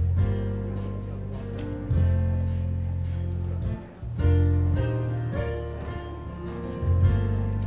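Live church music: held chords over a heavy bass line, briefly dropping away about four seconds in before coming back in.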